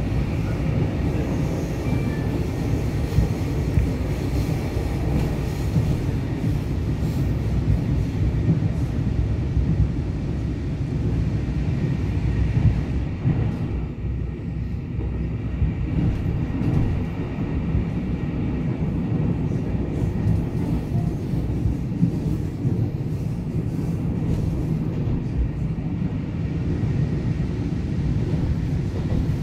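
Interior running noise of a Taiwan Railways EMU900 electric multiple unit under way: a steady low rumble from the wheels and running gear, easing a little about halfway through.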